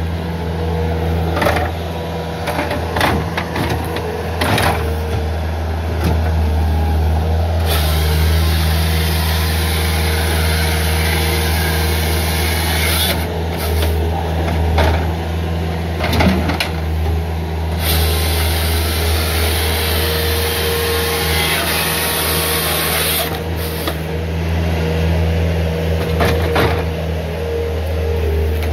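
Bobcat S300 skid steer's diesel engine running steadily under load while its hydraulic grapple saw cuts through a log, the cutting heard as a loud hiss in long stretches through the middle. A few sharp knocks of wood come in between.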